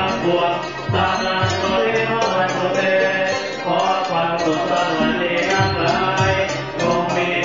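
Music with singing voices, continuous and steady in level.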